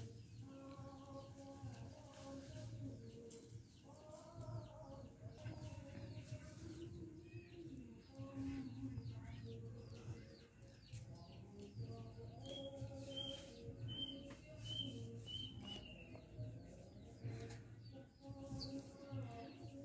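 Birds chirping and calling, with a run of short, high repeated notes about two-thirds of the way through, over a low steady hum.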